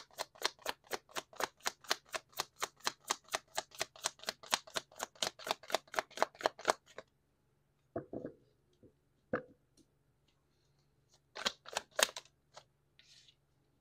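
A deck of cards being shuffled by hand: a steady run of quick card clicks, about five or six a second, that stops about seven seconds in. A few separate card taps and knocks follow.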